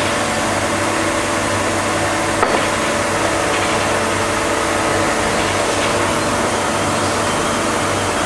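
Ormac shoe lasting machine running with a steady mechanical hum, with a single click about two and a half seconds in.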